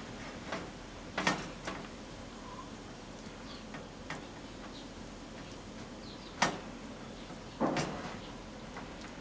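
Hands dredging bone-in short ribs in flour in a stainless steel bowl: soft handling noise with a few knocks of the meat and hands against the bowl, the loudest about a second in, near six and a half seconds, and near eight seconds.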